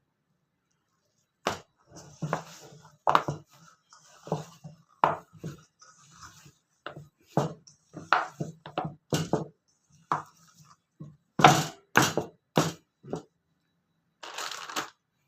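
Irregular sharp knocks of food being chopped or pounded in a kitchen, starting about a second and a half in and going on for roughly eleven seconds, followed by a short scraping or rustling noise near the end.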